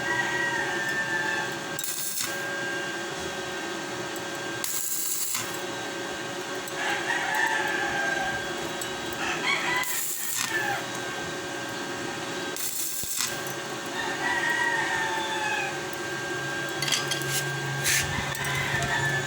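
Roosters crowing again and again over a steady hum, with several short bursts of hiss.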